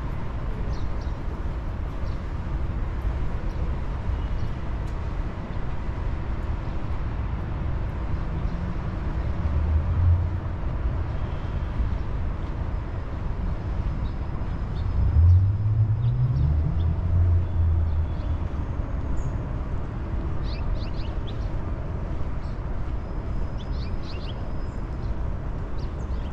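City street traffic: a steady low rumble of passing vehicles. About fifteen seconds in, one vehicle's engine rises in pitch as it accelerates. A few light clicks come near the end.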